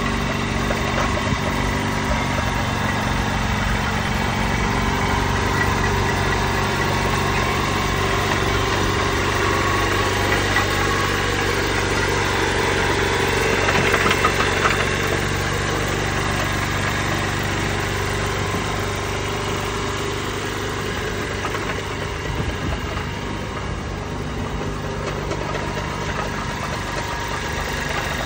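Maeda spider crane's engine running steadily at idle. It gets a little louder about halfway through.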